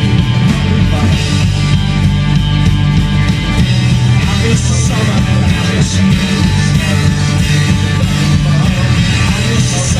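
Punk rock band playing: distorted electric guitars, bass and a drum kit with crashing cymbals, loud and dense without a break.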